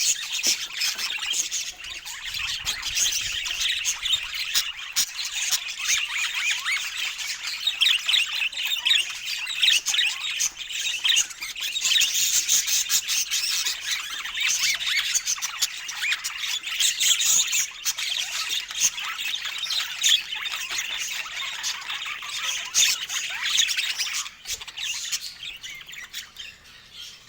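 A flock of budgerigars chattering, with many overlapping squawks, chirps and warbles. It thins out near the end.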